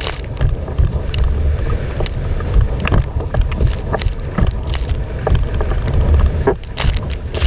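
Wind buffeting the microphone of a camera mounted on a windsurfing rig, a heavy continuous low rumble, with many sharp splashes and slaps of water against the windsurf board as it sails over chop.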